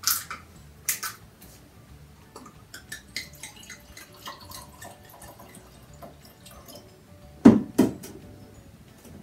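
Homemade red wine being poured from a bottle into a glass: sharp clinks at first, then trickling and dripping, and two loud knocks near the end.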